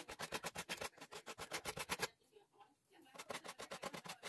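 Paintbrush scrubbing paint onto carved styrofoam: fast, regular scratchy strokes, about ten a second, pausing for about a second midway.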